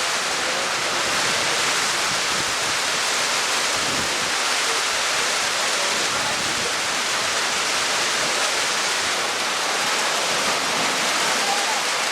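Rushing water: a steady, even noise that holds without a break.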